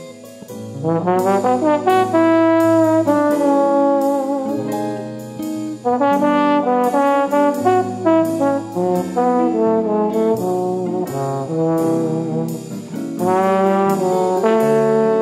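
Background music: an instrumental tune with a brass melody over a steady beat, coming in fuller about a second in.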